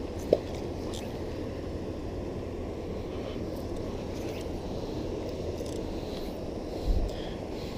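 Steady rushing noise of flowing river water. A sharp click comes about a third of a second in, and a short low buffet of wind on the microphone comes near the end.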